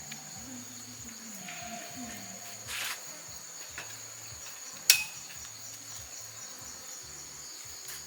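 Steady, high-pitched insect chorus, like crickets, at a camp in the forest. A short rustle comes near three seconds in, and a single sharp knock or click, the loudest sound, about five seconds in.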